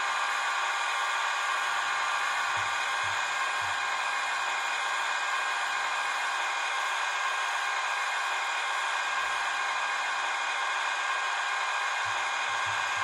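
Small electric motors and gearing inside a Roco H0-scale model railway crane (EDK 750) running with a steady whir as the boom and hook move.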